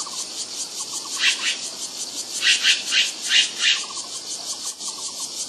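Forest insects chirring in fast, even high-pitched pulses, swelling louder a few times.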